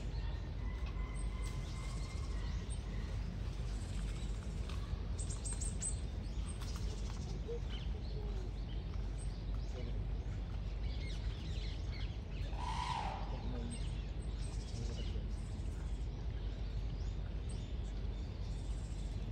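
Outdoor background noise: a steady low rumble with faint bird chirps, and one brief louder call about two-thirds of the way through.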